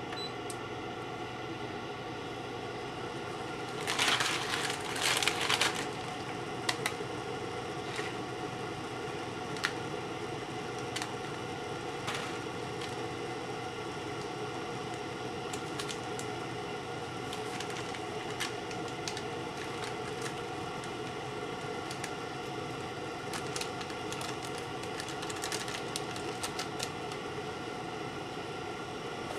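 Pot of instant ramen noodles boiling under a glass lid: a steady bubbling hiss with scattered small ticks and pops. A louder noisy burst starts about four seconds in and lasts under two seconds.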